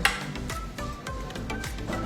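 Background music with a steady beat, starting on a sharp hit.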